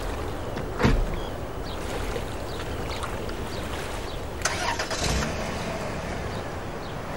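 A car outdoors: a door thuds shut about a second in, then the engine starts a little past the middle, over a steady low rumble.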